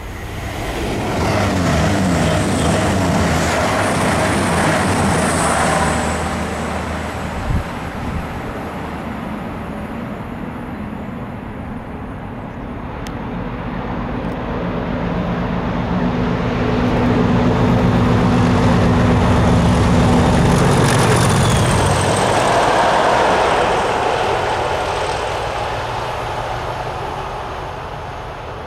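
Class 37 diesel locomotives with English Electric V12 engines running past under power, coupled to two Class 73 electro-diesels. The engine sound swells twice, loudest about two-thirds of the way through, then fades as the locomotives draw away. There is a single short knock about a quarter of the way in.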